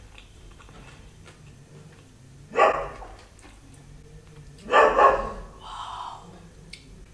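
A dog barking: two loud barks about two seconds apart, followed by a softer, shorter sound.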